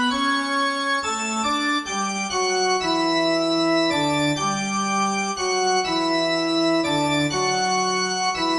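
Music of held organ-style chords: steady sustained notes that change to a new chord every second or so.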